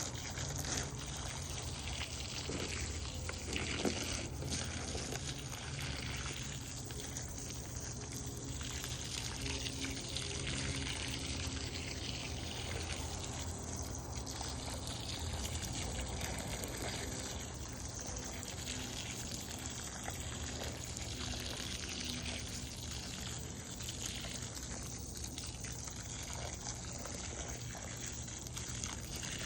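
Water from a garden watering stream splashing steadily onto plants and soil, with a steady low hum underneath.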